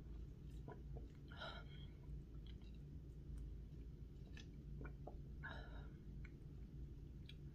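Quiet mouth sounds of sipping through a plastic straw: faint lip and tongue clicks and two short breathy sucks, one about a second and a half in and one about five and a half seconds in, over a low steady background hum.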